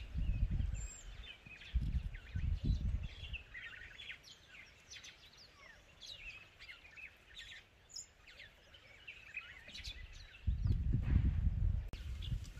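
Birds chirping and calling, with many short notes sweeping up and down, over bursts of low wind rumble on the microphone, loudest about ten seconds in.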